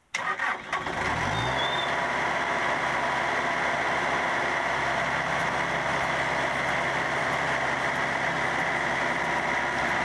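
Bobcat skid-steer loader's diesel engine starting up, rising in pitch over the first second or so, then running steadily.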